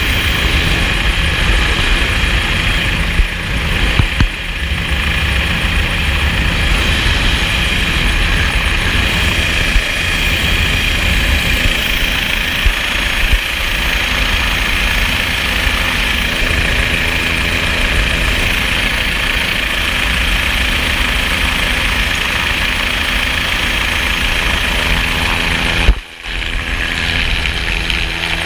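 Helicopter engine and rotor running steadily, a loud even noise with a low hum. A sharp knock and a brief dip in the noise come near the end.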